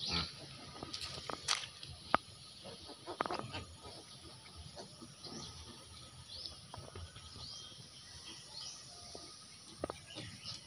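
Pigs and piglets moving over dry leaves and twigs: scattered rustling and crackling with sharp clicks, the sharpest about two seconds in, and a few short bird chirps in the background.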